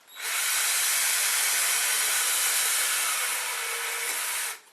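Cordless drill running steadily while drilling a pilot hole, then stopping suddenly after about four and a half seconds; the owner puts the stop down to a flat battery.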